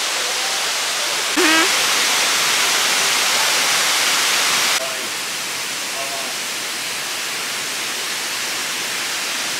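Waterfall water rushing, a steady noise that jumps louder about a second and a half in and drops back about three seconds later. Faint distant voices come through now and then.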